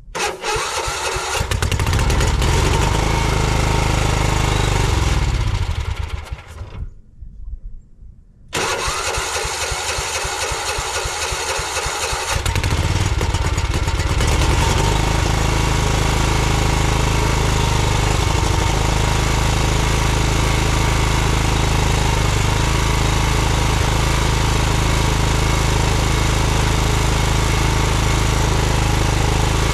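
Weedeater lawn tractor's small engine starting and running, its throttle worked by hand at the governor with the cable unhooked. It runs up, falls away around six seconds in, comes back abruptly at about eight and a half seconds, and runs unevenly before settling into a steady run after about fourteen seconds.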